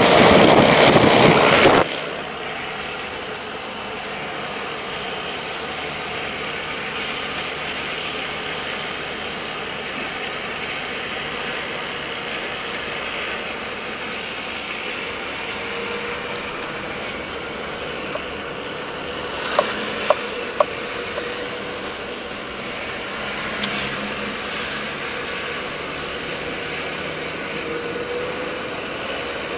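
Loud wind rushing over the microphone for about the first two seconds, then steady car cabin noise: engine and tyre hum while driving slowly. Three sharp clicks about two-thirds of the way through.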